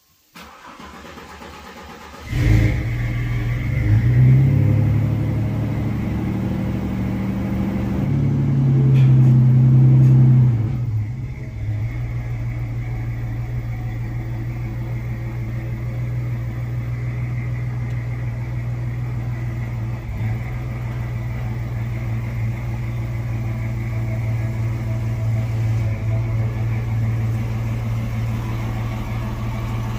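Pickup truck engine starting: a faint lead-in, then the engine catches about two and a half seconds in. It is revved twice, around four seconds and again from eight to ten seconds, then settles into a steady idle.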